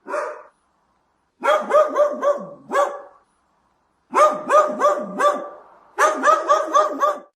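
A small dog barking: a single bark, then three quick runs of four or five high-pitched barks each.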